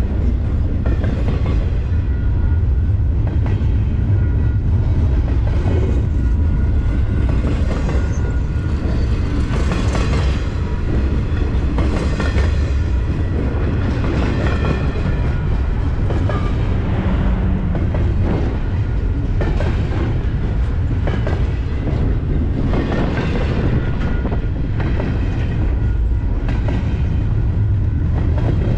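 Double-stack intermodal container train's well cars rolling past close by. A loud, steady rumble of steel wheels on rail, with repeated clacks as the wheelsets cross rail joints.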